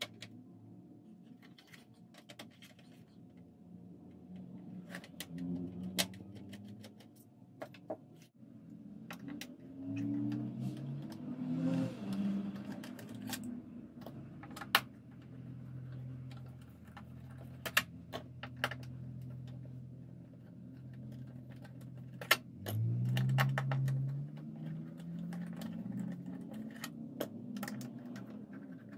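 Scattered clicks, taps and clatters of a screwdriver and loose metal and plastic parts being handled while a game console is taken apart. Low muffled rumbles swell twice along the way.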